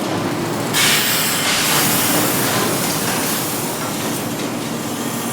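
Factory ambience: steady machinery noise with a faint hum, joined about a second in by a loud hiss that carries on.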